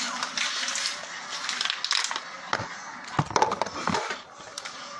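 Plastic water bottles crinkling and crackling irregularly as two people chug water from them.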